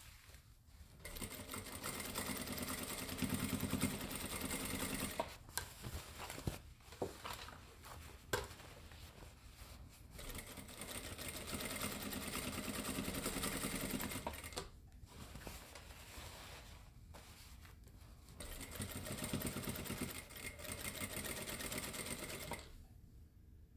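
JACK industrial single-needle sewing machine running as it topstitches a seam. It sews in three runs of a few seconds each, with short pauses and a few light clicks between them.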